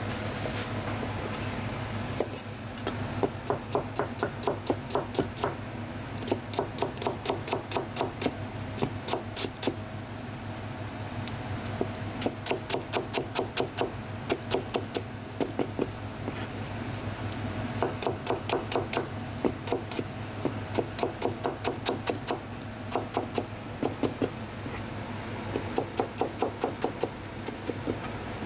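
Chef's knife slicing small bulbs into thin rings on a white plastic cutting board: quick runs of taps, about five a second, broken by short pauses.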